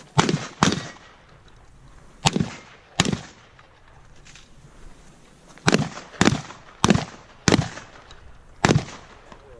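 Shotgun firing nine shots: a quick pair right at the start, two more about two and three seconds in, then a run of four roughly half a second apart and a last shot near the end.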